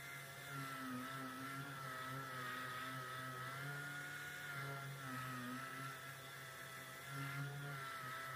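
Random orbital sander running with coarse-grit paper against body filler on a car panel: a steady whine over hiss, the pitch dipping and recovering slightly as the pad is pressed and moved.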